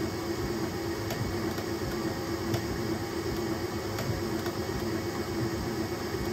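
3D printer printing at high speed: a steady whir of fans and motors, with faint ticks now and then.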